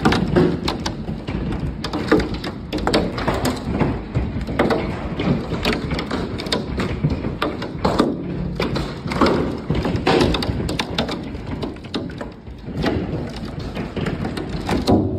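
Large hailstones pelting a wooden deck, patio furniture and lake water: a dense, irregular clatter of thuds and taps over the steady rush of heavy rain.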